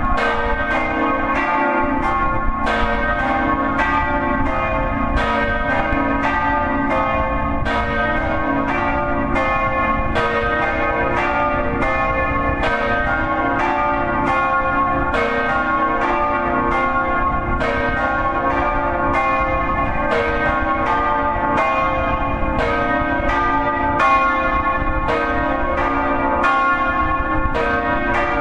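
Swinging church bells rung in the Friulian style, heard close up in the belfry: clapper strikes about one and a half a second, each ringing on into the next in a steady peal, with a low rumble underneath.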